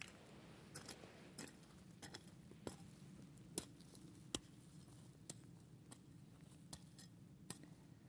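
Footsteps crunching on dry, freshly tilled clods of soil: short, sharp crunches at walking pace, about one every two-thirds of a second, over a faint low background hum.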